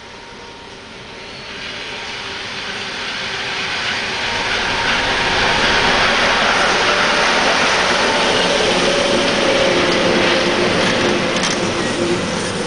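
BR232 'Ludmiła' diesel-electric locomotive with a 3E electric locomotive coupled behind passing by: diesel engine and wheels on the rails, growing steadily louder as it approaches, loudest as it goes past, and starting to fade near the end.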